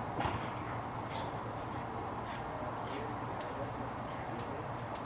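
A steady high-pitched insect trill, over a low hum and a few faint scattered clicks.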